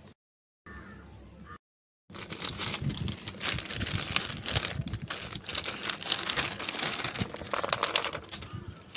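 Packaging crinkling and rustling as it is handled: a dense crackle of many quick small clicks for about six seconds. Two brief cuts to dead silence come before it.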